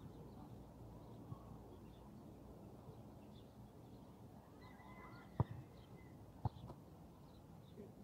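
Faint outdoor ambience with small birds chirping faintly. Just past the middle comes a brief high steady tone, then two sharp knocks about a second apart.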